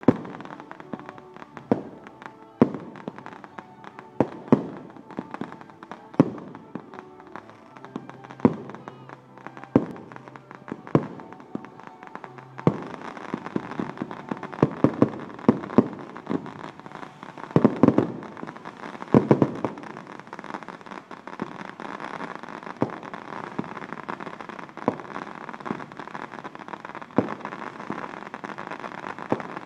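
Fireworks display: aerial shells bursting in single irregular bangs every second or two, then after about twelve seconds a denser volley of bangs over continuous crackling.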